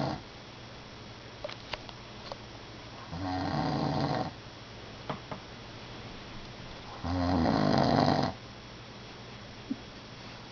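A sleeping person snoring: two snores of about a second each, roughly four seconds apart, with quiet breathing between.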